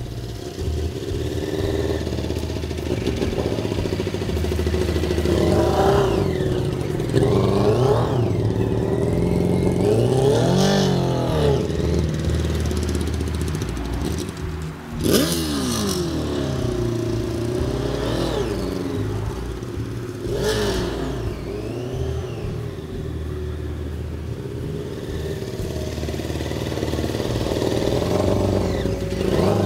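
Carbureted motorcycle engine being ridden at low speed, revving up and back down again and again, its pitch rising and falling every few seconds over a steady low idle. The sharpest rev comes about halfway through. The carburetors have just been retuned for better throttle response.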